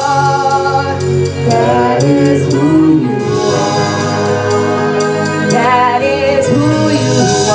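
Praise team singing a gospel worship song into microphones over instrumental accompaniment.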